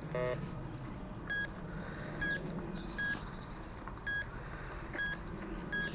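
Metal detector sounding through its built-in speaker: six short, identical high beeps, a little under a second apart, as it is swept back and forth over a target, with a brief lower tone just after the start.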